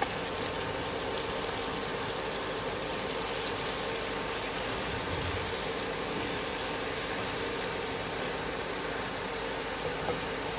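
Marinated prawns sizzling steadily in a little hot coconut oil on a tawa.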